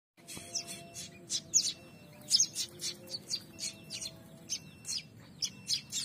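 A pair of young prinias (prenjak) calling in rapid, short, high chirps, two or three a second; the chicks' gaping yellow-edged beaks mark these as begging calls.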